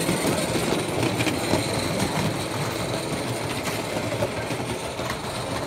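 Small live-steam model steam locomotives running on a 16 mm scale garden railway: a steady mix of steam exhaust and the rattle of small wheels and rolling stock over the track.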